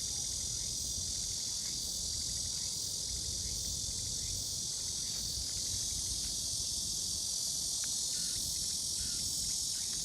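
A steady chorus of insects, most likely crickets, trilling high and without a break.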